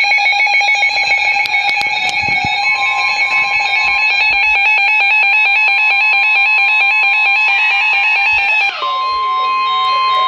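NOAA Weather Radio emergency alert. Rapid two-tone warbling data bursts of the SAME digital header come first. About nine seconds in they give way to the steady, single-pitched 1050 Hz warning alarm tone.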